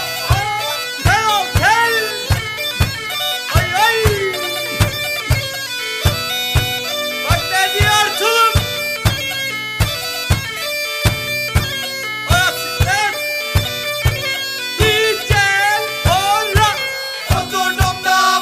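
Background music: a reedy wind-instrument melody with bending notes over a held drone, and drum beats about twice a second.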